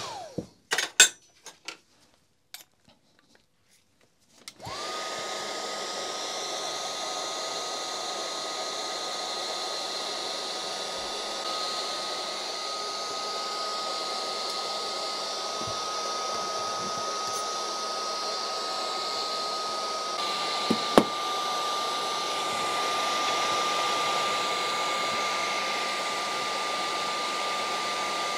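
Makita cordless 18 V heat gun blowing hot air onto a rotary hammer's aluminium gear housing to heat it. It shuts off with a few clicks, is quiet for a couple of seconds, then starts again and runs steadily with a high fan whine. Past the middle the whine steps slightly lower, with a click.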